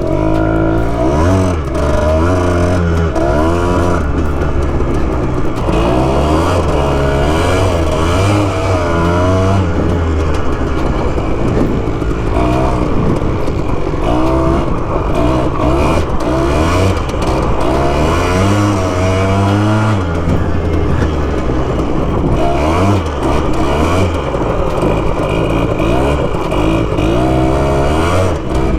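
Small off-road engine being ridden hard, revving up and down over and over.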